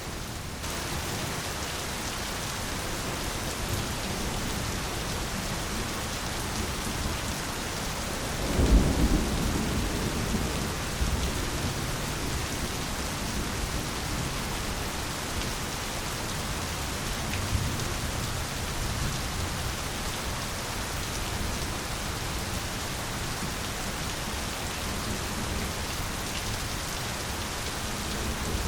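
Steady heavy rain falling, with a low rumble of thunder swelling up about nine seconds in and fading over a couple of seconds.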